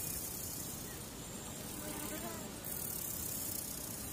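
Steady hiss of an open, idle broadcast feed, its high band cutting in and out, with a faint brief sound in the middle.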